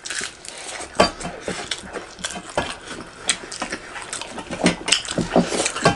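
Crunching and chewing of crispy fried pakoda, irregular and uneven, with the sharpest crunch about a second in.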